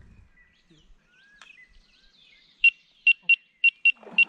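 Electronic carp bite alarm sounding: six short, loud beeps at one fixed high pitch in a quick irregular run, starting about two and a half seconds in, the signal of a fish taking line on a rod.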